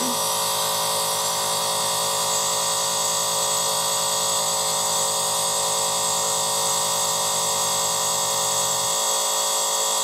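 Tabletop compressor nebulizer running, a steady electric buzz from its air compressor as it drives the medicine mist out through the mouthpiece.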